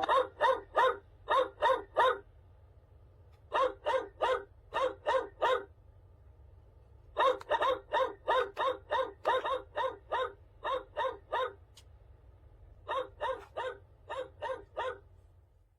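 LED pixel alarm clock sounding its alarm: groups of short, repeated electronic chirps, about three a second, broken by short pauses.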